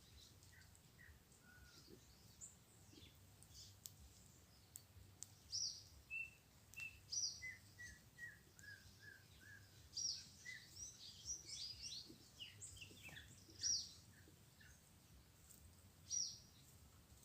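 Several small songbirds calling faintly: scattered sharp, high chirps throughout, with a quick run of short, lower notes in the middle.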